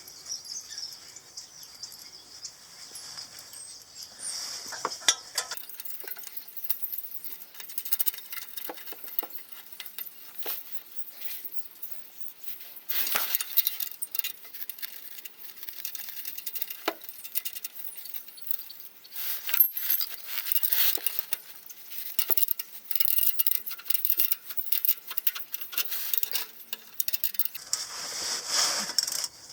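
Hand tools and hardware clinking and knocking as new bolts with large penny washers are fitted and tightened on a Toyota Celica's replacement exhaust joint, with spells of rapid clicking.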